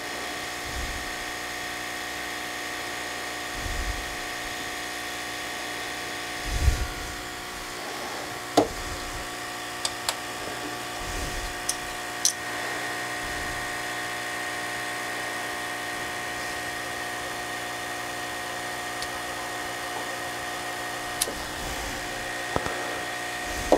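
Electric heat gun running steadily, its fan motor giving a continuous hum with a high whine, while heating the plastic case of a smart plug to soften it. A few short knocks and clicks of a prying tool and handling of the plug come through over it.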